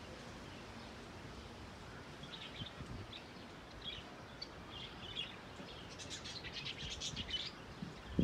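Small birds chirping and tweeting in short high-pitched calls, sparse at first and then in a dense flurry near the end, over a faint steady background.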